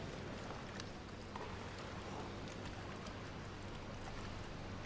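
Hushed indoor swimming-pool arena: an even background hiss over a steady low hum, with faint scattered ticks and small water splashes as swimmers wait in the water at the blocks.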